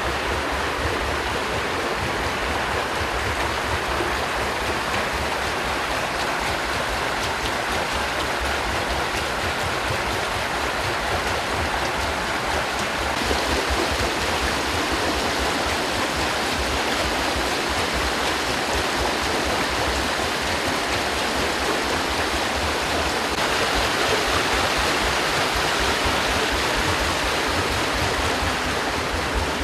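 Water of a mill stream rushing and splashing at a wooden waterwheel and its flume: a steady, dense rushing noise with a low rumble underneath, growing a little brighter about two-thirds through.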